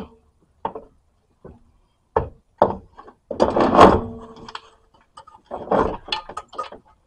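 Irregular knocks and clunks of a new coil-spring strut assembly being worked into the wheel well, metal bumping against the body and knuckle, with a denser clatter and a brief metallic ring about halfway through.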